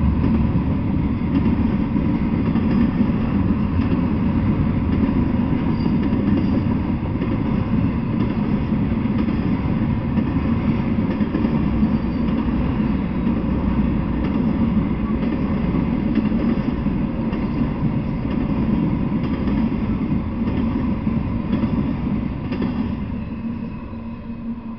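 Intermodal freight train of truck trailers on flatcars rolling past, a steady rumble of steel wheels on rail. The rumble fades over the last couple of seconds as the end of the train goes by.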